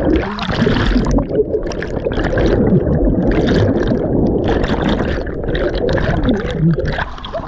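Muffled bubbling and churning water heard through a camera microphone under the water, as a mass of air bubbles rushes past.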